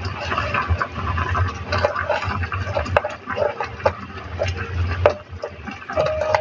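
Kitchen knife slicing red chillies into strips on a plastic cutting board: a few sharp knocks of the blade against the board among softer cutting and rustling noise, over a steady low hum.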